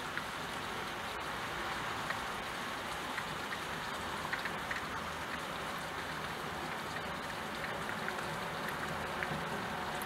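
Steady rain falling: an even hiss with scattered light ticks of individual drops.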